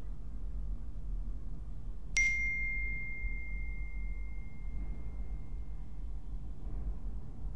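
A single bright, bell-like ding about two seconds in, its clear tone ringing out and fading over about four seconds, over a steady low rumble.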